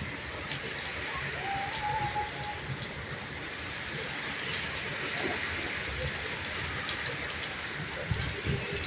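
Monsoon rain falling steadily, a continuous even hiss of rain on surfaces.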